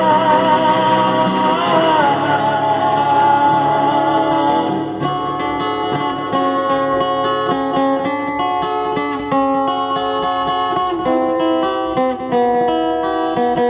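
Music: the end of a gospel song, with the last sung note held with vibrato, ending about two seconds in. Then an acoustic guitar picks an instrumental outro over the backing track.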